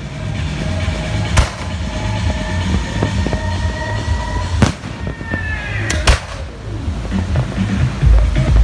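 Fireworks display: sharp bangs of shells bursting overhead, a few seconds apart, with a quick double bang near the end and a falling whistle just before it. Background music with a pulsing bass runs underneath.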